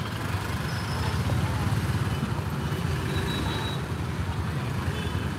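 Engines of a police car and truck driving slowly past at close range, a steady low engine sound, with crowd voices behind it.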